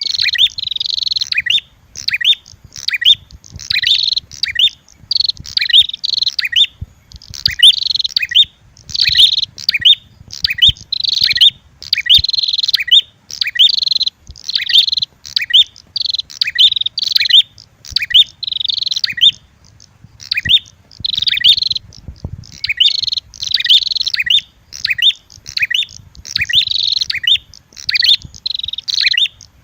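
Lure recording of prenjak (prinia) birds, the red-headed prenjak mixed with calls of a female, giving loud, rapid chirping phrases of about a second each, repeated one after another with short gaps.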